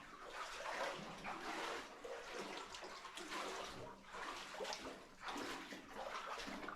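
Footsteps wading through shallow standing water on a tunnel floor, a splashy swish about once a second.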